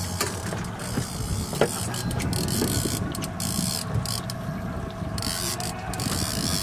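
Daiwa Magda Pro line-counter trolling reel being cranked to bring in a hooked fish, its gears making a steady mechanical ratcheting, with a few sharper clicks. A steady low hum, typical of a boat's motor, runs underneath.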